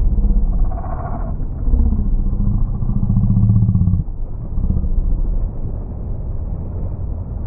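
Jet ski engines running and revving, the pitch rising about two seconds in and holding, then cutting off suddenly about four seconds in before coming back briefly, over a steady low rumble.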